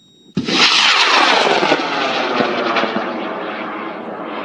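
High-power model rocket motor firing at liftoff: a loud rushing noise that starts abruptly about half a second in and slowly fades as the rocket climbs away, with a sweeping, flanging quality.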